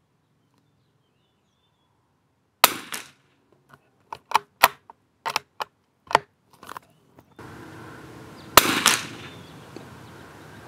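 CZ Brno Model 4 bolt-action .22 LR rifle firing a sharp crack about two and a half seconds in. A string of short metallic clicks follows as the bolt is worked to eject the case and chamber the next round, then a second shot about six seconds after the first.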